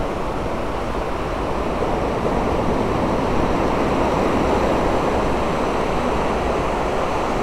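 Steady rushing noise of surf breaking along a flat sandy beach, with no separate events.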